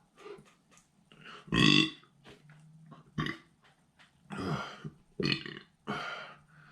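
A man burping repeatedly, a string of about five burps with short pauses between, the loudest about one and a half seconds in. He is bringing up gas after eating a very large amount of food.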